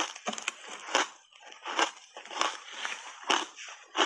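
Crunchy shaved ice coated in matcha powder being chewed, with a crisp crunch roughly every half second.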